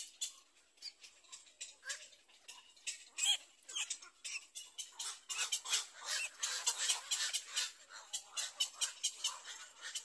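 Black-crowned night heron chicks at the nest giving rapid, high-pitched clicking calls, a quick series of short ticks that grows denser and louder about halfway through. This is the nestlings' begging chatter toward the adult.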